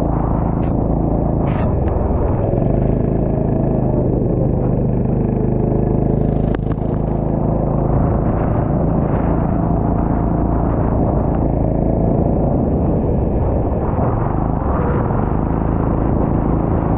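Go-kart engine running steadily at speed from the driver's seat, its pitch wavering up and down with the throttle, over the hiss of tyres on a wet track. There is a brief sharp knock about six and a half seconds in.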